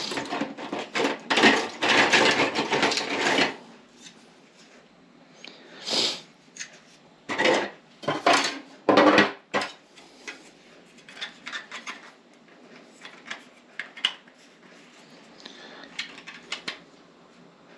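Objects being handled on a table: a stretch of clattering and rustling for the first few seconds, a few louder knocks or clinks around the middle, then scattered light clicks and taps.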